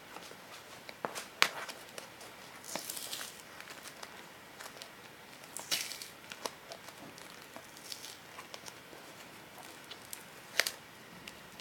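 Packaging being torn open and crinkled by hand: irregular rustling and crinkling with scattered sharp snaps, the sharpest about a second and a half in and again near the end.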